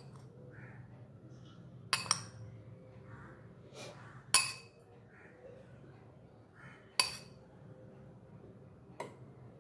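A metal spoon clinking four times, a couple of seconds apart, as grated coconut masala is spooned from a bowl into a steel mixer-grinder jar, with soft scraping between the clinks.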